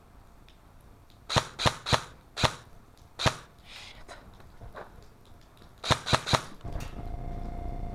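Airsoft gun firing single shots: five sharp snaps spread over about two seconds, then a quick burst of three a few seconds later. A steady hum comes in near the end.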